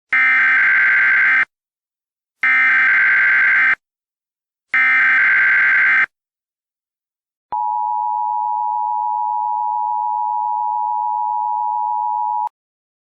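Emergency Alert System tones. First come three short bursts of digital header data (SAME) about a second apart. Then the steady two-tone attention signal runs for about five seconds and cuts off suddenly. Together they announce that an emergency alert message follows.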